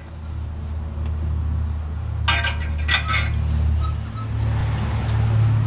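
A few sharp metallic clinks about two to three seconds in, from new exhaust hardware (bracket, hanger, flange parts) being handled, over low background music whose bass note changes about four seconds in.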